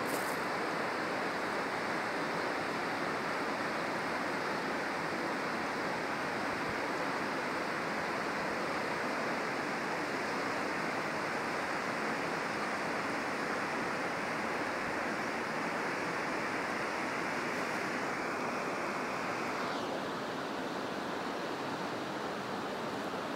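Steady rush of a fast mountain river, an even unbroken roar of water that softens slightly near the end.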